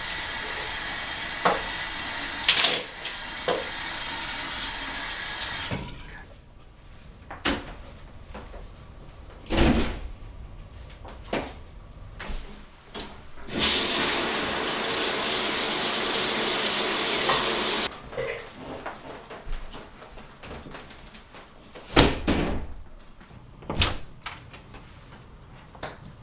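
Bathroom sink tap running, shut off about six seconds in, followed by scattered clicks and knocks. Midway a shower runs for about four seconds and stops suddenly, and a few sharp knocks near the end are a door.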